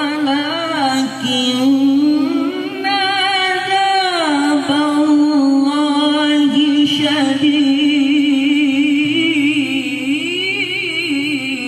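Male qori reciting the Quran in the melodic tilawah style into a handheld microphone: long held notes with vibrato and ornamented turns in a high voice.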